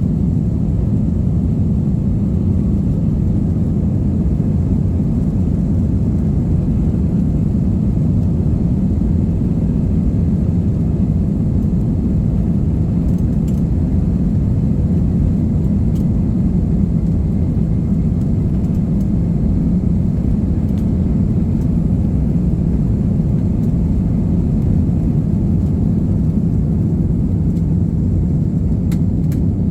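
Steady low rumble of an airliner's engines and rushing air heard inside the passenger cabin, during the climb after takeoff.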